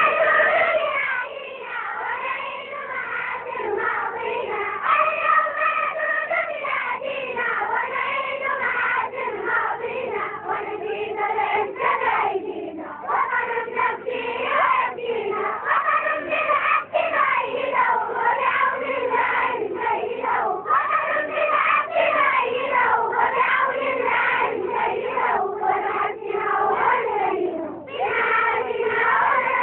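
A group of schoolchildren singing the school morning anthem together, with short breaks between lines.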